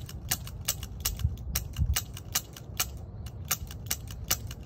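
A quick run of sharp metallic clicks, about four or five a second. It is the hammer of a Smith & Wesson .500 Magnum revolver falling and its cylinder turning as the trigger is pulled again and again. The .22 LR rimfire rounds in its chambers are struck on the rim but fail to fire.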